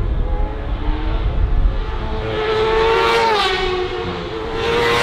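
Classic superbike racing motorcycle at full throttle, climbing the road toward the listener. The engine note rises, dips about three seconds in, then rises again and drops away at the end.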